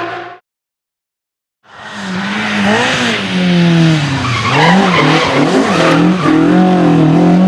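Rally car at full effort on a stage: engine revving hard, its pitch swinging up and down as the throttle is worked, with tyre noise as the car slides. A car's engine sound cuts off just after the start, and after about a second of silence the next car fades in.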